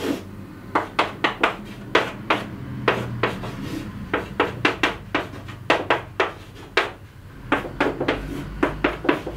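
Chalk writing on a chalkboard: quick sharp taps and short scratches as each stroke goes down, several a second, with a brief lull a little past the middle.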